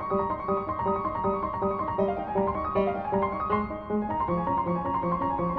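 Background piano music: a quick, even run of notes.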